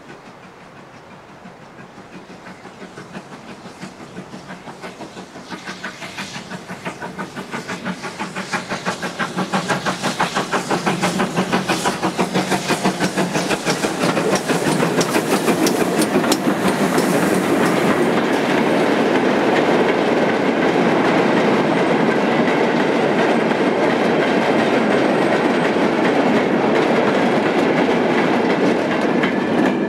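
GWR Modified Hall class two-cylinder 4-6-0 steam locomotive No. 6990 working a goods train, its exhaust beats at about three a second growing steadily louder as it approaches. Over the second half the wagons and brake van run past, rattling with clickety-clack over the rail joints.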